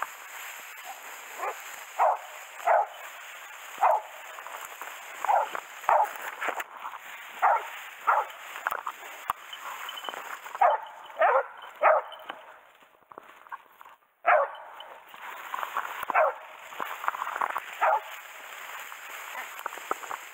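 Hunting hounds barking over and over, about one bark a second, baying at a wild boar they are holding, with a short lull about two-thirds through. Bamboo grass rustles against the wearer of the microphone.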